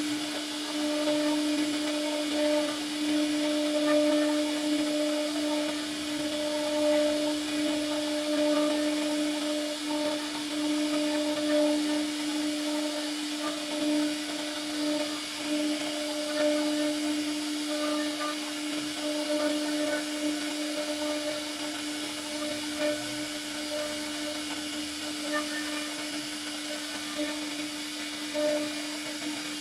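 CNC router spindle whining at a steady high pitch as a profile cutter carves a beaded moulding into a wooden panel, with the hiss of the bit cutting wood. The level swells and eases as the cutter moves along the curve.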